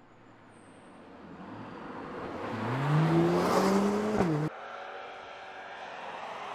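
A hot hatchback accelerating hard up a mountain road toward and past the listener. Its engine note climbs steadily in pitch and loudness, then bends down as it passes about four seconds in. The sound then cuts abruptly to a quieter, steady engine note from another car driving.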